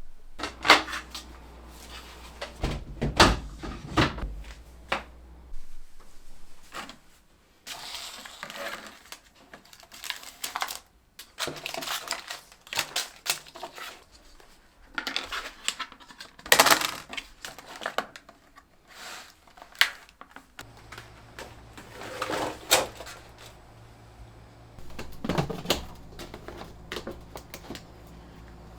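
Irregular clicks, knocks and short rustles of objects being handled and set down: hard containers and packaging being moved about.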